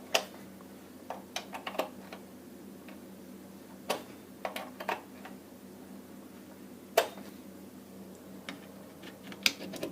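Scattered sharp clicks and taps of small hard objects being handled, with one louder click about seven seconds in, over a faint steady hum.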